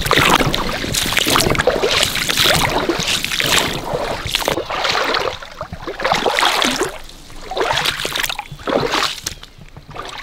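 Footsteps crunching and swishing through dry leaf litter and brush at a steady walking pace, close to the microphone, easing off near the end.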